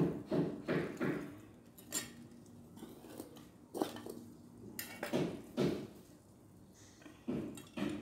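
Metal hand trowel scraping and knocking against the inside of a small ceramic plant pot in a series of irregular knocks, as it loosens a potted plant's root ball.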